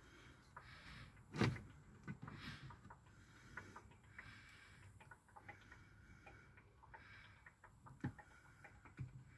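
Engine oil pouring from a plastic jug into a funnel in the engine's filler neck, with faint irregular glugs and clicks. Two sharper knocks come through, one about a second and a half in and one near the end.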